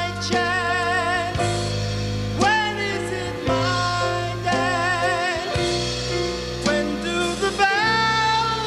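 A small jazz-style band with bass and drums plays. Long held notes waver in vibrato over the top, moving to a new pitch about every second.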